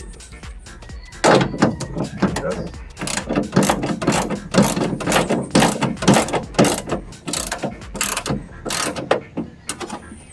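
A quick, irregular run of sharp mechanical clicks and knocks, with the ratchet-like sound of a hand tool or parts being worked. It starts about a second in and stops near the end.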